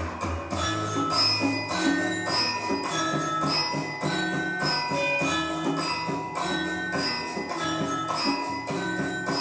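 Traditional dance music: a quick, rhythmic melody of struck, ringing pitched notes over a steady percussion beat.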